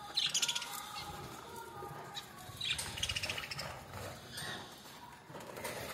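A bird fluttering its wings in two short rapid bursts, one near the start and one about halfway through.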